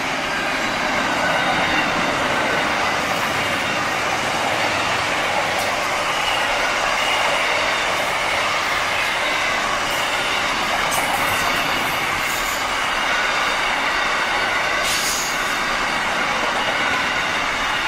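Container wagons of a freight train rolling past at close range: a steady noise of steel wheels on rail, with faint wheel squeal and a few sharp clicks in the second half.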